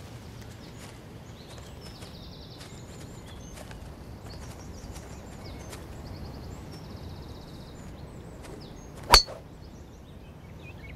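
Quiet outdoor ambience with faint bird chirps and trills, then about nine seconds in a single sharp crack of a golf driver striking the ball off the tee.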